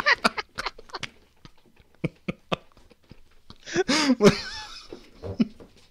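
A man's stifled laughter: a run of short breathy bursts, with a louder voiced laugh about four seconds in.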